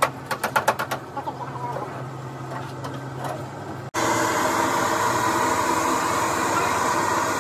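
Workshop sounds: a quick run of knocks in the first second over a steady low hum, then, about four seconds in, a louder steady machine-like noise.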